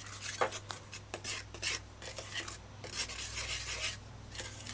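Wooden spoon stirring dry flour mix in a glass bowl: uneven scraping and rubbing strokes of the spoon through the powder and against the glass.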